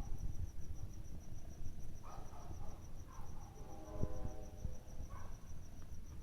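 A cricket chirping in a steady, evenly pulsing high trill, over a low background rumble. Faint distant calls with a pitch come through a few times, the longest about four seconds in.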